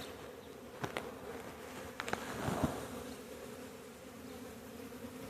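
A swarm of honeybees buzzing in a steady hum: a colony disturbed as its hive is opened and the comb removed. A few light clicks sound about one and two seconds in.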